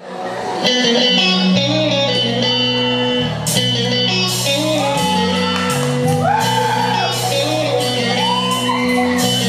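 Live band playing an instrumental intro: a bending electric guitar melody over held keyboard chords and a bass line. The music fades in at the start, and drum strikes join about three and a half seconds in.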